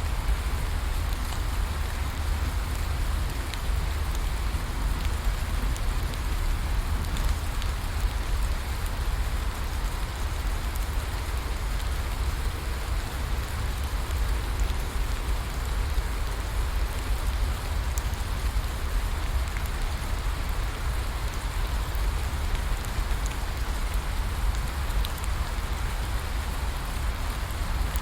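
Steady rain falling without a break, with scattered individual drops ticking close by over a deep low rumble.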